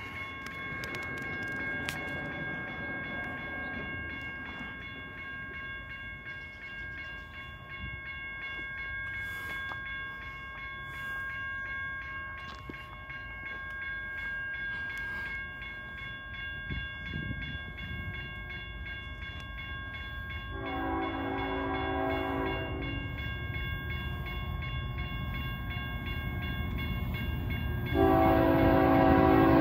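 BNSF diesel freight train approaching: a low locomotive rumble grows steadily louder. Its horn sounds one chord for about two and a half seconds about two-thirds of the way through, then sounds again, much louder, near the end.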